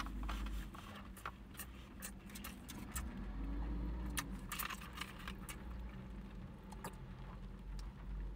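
Scattered small clicks and crinkles of plastic being handled: a takeout bento container and a plastic soda bottle whose cap is twisted open, with a steady low rumble underneath.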